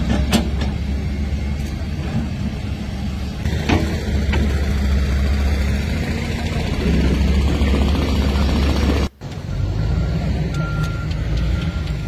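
A heavy engine running steadily with a low drone, cutting out briefly about nine seconds in.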